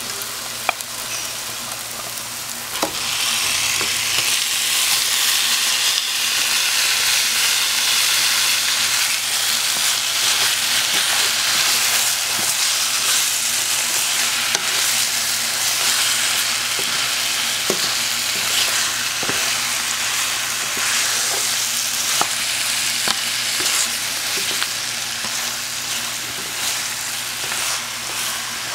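Goat meat pieces sizzling in hot oil and spice paste in a non-stick wok while being stirred with a spatula. The sizzle grows louder about three seconds in as the meat is turned, with scattered clicks of the spatula against the pan.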